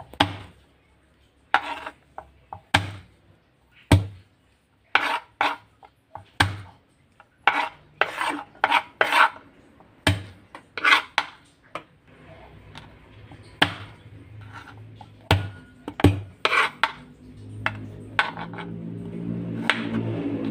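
Kitchen knife slicing garlic cloves on a bamboo cutting board: separate sharp knocks of the blade on the board, spaced about half a second to a second apart, mixed with short scraping strokes.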